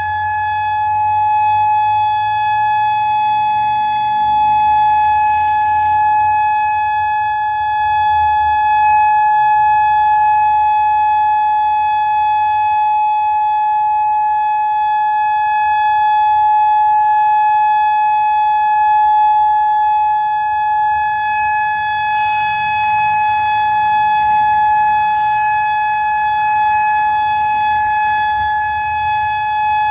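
Federal Signal Modulator 5020B outdoor warning siren sounding the full alert: one unbroken steady tone, holding its pitch and swelling and fading slightly in loudness.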